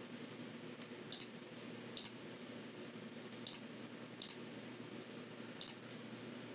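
Computer mouse clicks: five short, sharp clicks, spaced roughly a second apart, over a faint steady background hum.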